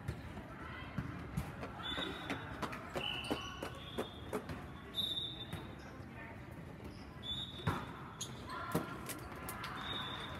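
Indoor volleyball play on a sport court: scattered sharp knocks of the ball being hit and bouncing, short high squeaks of sneakers on the floor, and players' voices.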